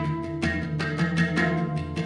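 Hang, a steel handpan, played with the hands: several notes struck in quick succession, each ringing on over a low sustained resonance.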